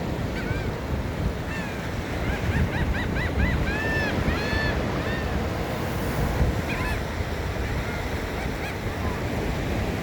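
Ocean surf washing in steadily, with wind buffeting the microphone. A run of short, arching bird calls comes from about half a second to five seconds in, and a couple more come around seven seconds.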